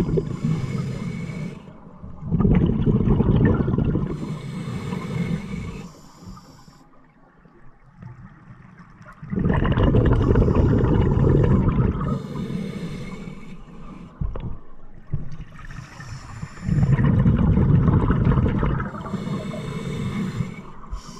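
Scuba diver breathing through a regulator underwater: long rumbling bursts of exhaled bubbles alternate with the high hiss of the regulator on each inhalation, repeating every six to seven seconds.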